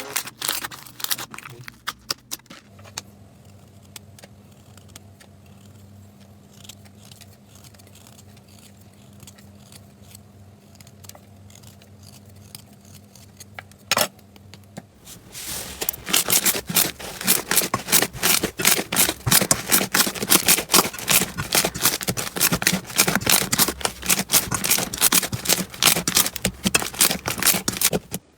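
Slime being squeezed and pressed by hand: at first only scattered soft clicks, then from about halfway a dense, fast run of sharp crackles and pops.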